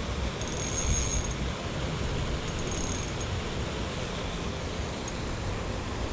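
Spinning reel's drag paying out line in two short buzzing spells, about a second in and again near three seconds, as a hooked smallmouth bass pulls against light 4-pound line, over a steady background rush.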